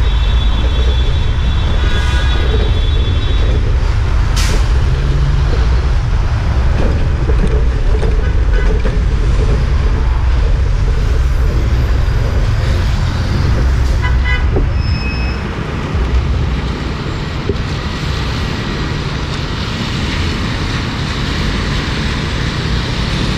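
Gridlocked city traffic: a steady low rumble of engines and road noise. A car horn sounds for about three seconds at the start, and there are a couple of short horn toots about two-thirds of the way through.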